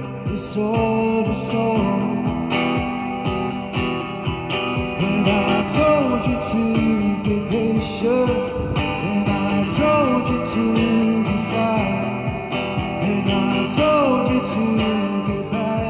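Electric guitar strummed and picked with a man singing over it, amplified through small portable speakers: a continuous rock-style street performance.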